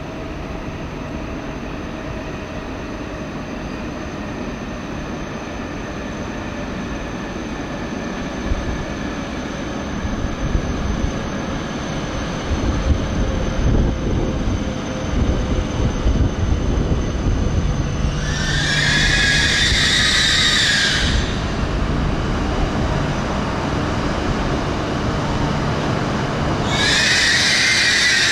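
E6+E5 series Shinkansen pulling in and slowing to a stop: rumbling running noise with a faint motor whine slowly falling in pitch as it decelerates. About 18 s in, a loud high brake squeal lasts some three seconds, and another starts near the end as the train comes to rest.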